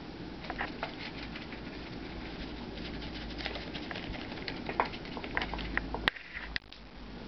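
Irregular light taps, clicks and scrapes of a watercolour brush held in the toes, working against paper and a paint palette, over a low steady hum. A sharp click comes about six seconds in, after which the background goes quieter.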